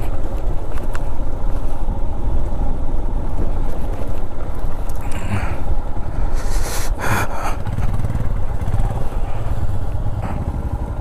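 Motorcycle engine running as the bike rolls slowly over a rough off-road track, with a couple of short crunching scrapes of stones under the tyres about five and seven seconds in.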